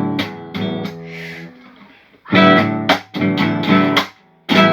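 Guitar strummed by a beginner without chords, the strings struck in a few strokes with one left ringing, then a quicker run of strums about halfway through.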